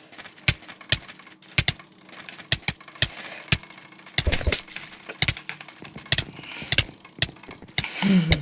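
Computer mouse and keyboard clicks, irregular, about one or two a second, with a quicker flurry about four seconds in, over a steady high hiss. A short pitched sound comes in just before the end.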